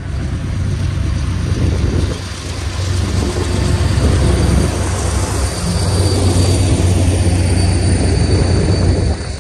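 Union Pacific diesel locomotive passing at close range with a deep, steady engine rumble, followed by double-stack container cars rolling by. The sound drops off sharply near the end.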